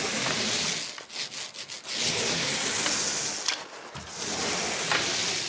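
Paint roller on an extension pole rolling wet paint up and down a wall: an even rubbing noise in three long strokes, with short gaps and a few light clicks between them.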